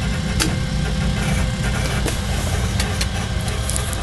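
Simulated engine sound of a Caravelle III's just-started left engine, a Rolls-Royce Avon turbojet, running steadily at ground idle as a low rumble, with a few sharp clicks scattered through it.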